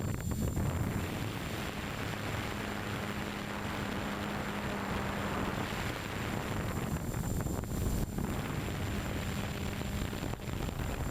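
Storm 6 hexcopter's rotors running in flight, picked up by the camera mounted on the drone: a loud, steady rushing drone with an even hum underneath.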